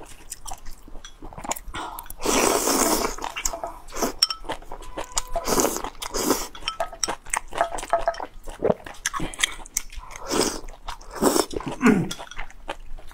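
Noodles being slurped and chewed up close: several long slurps, the loudest about two seconds in, with wet chewing and mouth clicks between them.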